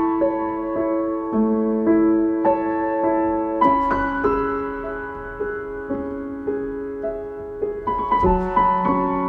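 Background music: slow, gentle piano, sustained notes and chords played at an unhurried pace.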